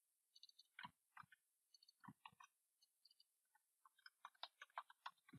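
Faint computer keyboard typing with mouse clicks: an irregular run of short keystroke clicks, thickest in the second half.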